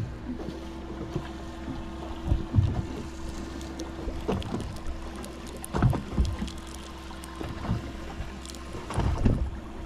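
Boat on open water: a steady low hum with wind on the microphone, broken by a few dull knocks, the loudest about two and a half, six and nine seconds in.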